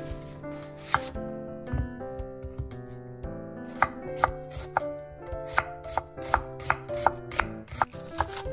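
Kitchen knife chopping an onion and then green onions on a wooden cutting board. Sharp knocks of the blade striking the board come in a quick run of about two a second, starting about four seconds in, over background music.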